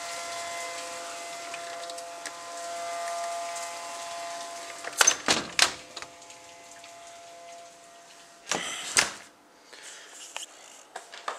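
Outdoor tornado warning siren holding a steady multi-tone wail, fading away after about eight seconds: a false activation, the siren set off by a lightning strike with no warning issued. A few sharp clicks come about five seconds in, and a short louder rustle a little later.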